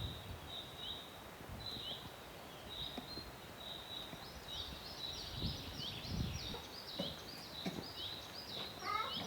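Small birds chirping outdoors: a steady run of short, high repeated calls that thickens into an overlapping chorus about halfway through, over a faint low rumble.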